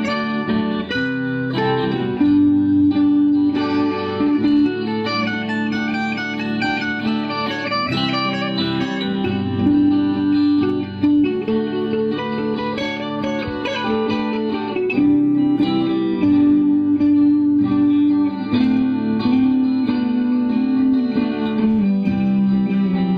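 Electric guitar played through a small practice amp: a melodic line of picked single notes, some held for about a second.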